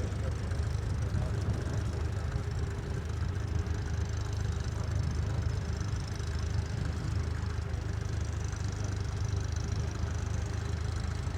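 Tractor diesel engine running at a steady speed.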